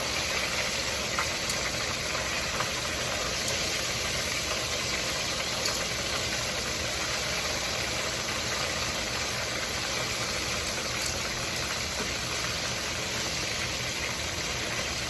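Fish frying in hot oil: a steady sizzle, with a few faint pops now and then.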